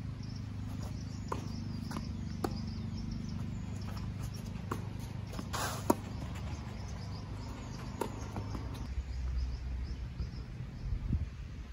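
Tennis rally on a clay court: a string of sharp pops from racket hits and ball bounces, one every one to two seconds. The loudest comes about six seconds in, as the near player hits a forehand. Faint bird or insect chirping and a low rumble run underneath.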